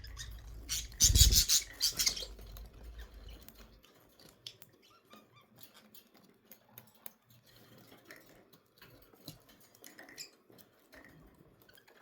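Pet budgerigars: a loud rustling, fluttering burst about a second in, then faint scattered clicks and scratching with a few short chirps.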